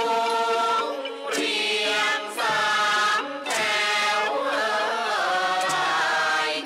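Thai classical sung chanting for a khon masked dance drama: voices hold long notes in phrases with short breaks between them, and the pitch slides and wavers in the second half.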